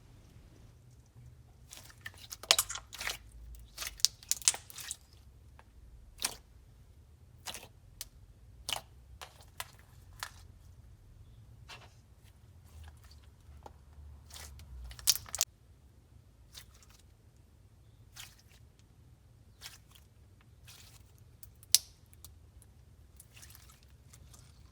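Clear slime being squeezed, poked and stretched by hand, giving off irregular sticky clicks and small air-bubble pops in scattered clusters.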